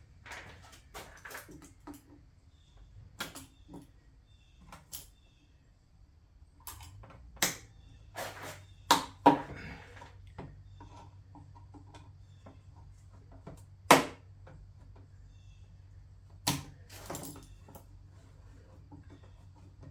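Scattered metal clinks and knocks of hand tools and parts being handled while taking apart an ATV, with the loudest sharp knocks about seven, nine, fourteen and sixteen seconds in.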